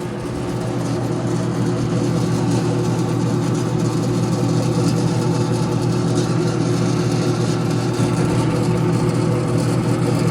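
Chive-cutting machine running with a steady, loud motor hum.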